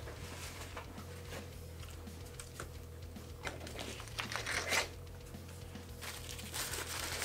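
A clatter of flip-card number counter cards being turned over about four seconds in, then crinkling and tearing of a paper burrito wrapper being opened near the end, over a steady low hum.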